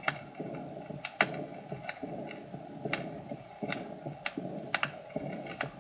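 Recorded heart sounds of combined aortic stenosis and aortic insufficiency: in each beat a rough systolic murmur is followed by an early, blowing diastolic murmur. The murmurs sit over a steady hiss with scattered sharp clicks.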